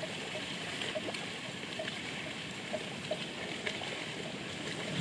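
Outdoor wetland ambience: a steady faint hiss with small short chirps or ticks scattered through it, about one or two a second.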